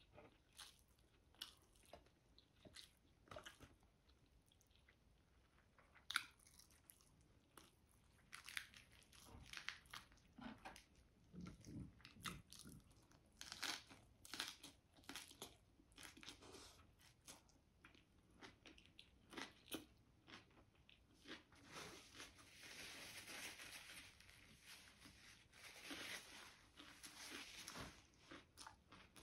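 Close-up eating sounds: chewing and biting with many small crisp crunches, as chicken adobo with rice is eaten wrapped in fresh lettuce leaves. The crunching runs denser for several seconds near the end.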